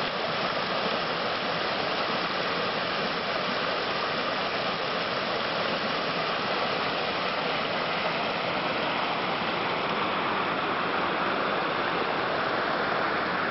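Shallow mountain stream pouring over a low stepped weir of stones and across a rocky bed: a steady rushing of water.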